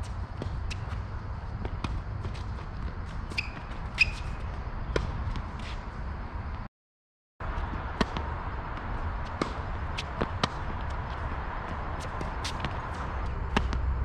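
Tennis ball struck by rackets and bouncing on a hard court: a string of sharp, separate pops with a few seconds between them, over a steady low rumble. The sound drops out completely for under a second about halfway through.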